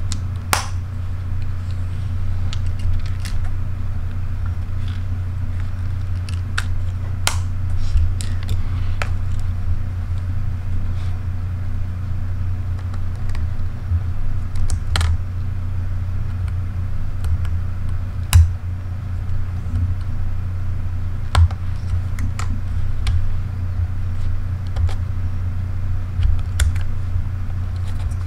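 Scattered clicks and taps of two compact cameras being handled on a table: plastic and metal bodies set down and turned over, controls pressed and battery and card doors opened. A steady low hum runs beneath them.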